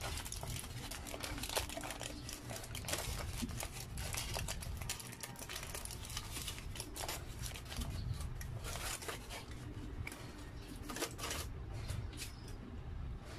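Aluminium foil crinkling and crackling as it is unwrapped from a burger by hand, in quick irregular crackles.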